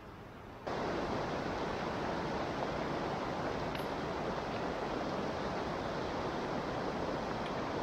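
The North Fork of the Popo Agie River rushing steadily, an even, unbroken sound of flowing water that starts abruptly about a second in.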